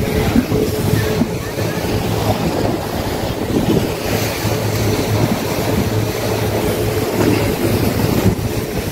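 Speedboat under way: its engine runs with a steady hum while water rushes along the hull and wind buffets the microphone.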